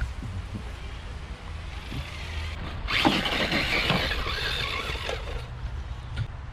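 Radio-controlled rock crawler's electric motor and gear drive whining under load for about two and a half seconds, starting suddenly about three seconds in and fading out, over a steady low rumble.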